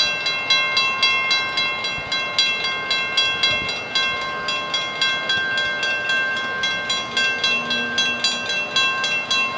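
Railroad grade-crossing warning bell ringing continuously in rapid, evenly spaced strikes, its metallic ring sustained between strikes.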